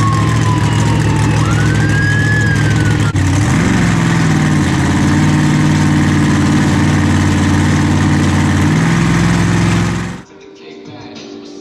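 A siren wailing, its pitch sliding down then back up, over a steady low engine-like drone that bends in pitch a couple of times. It all cuts off abruptly about ten seconds in, leaving quieter music.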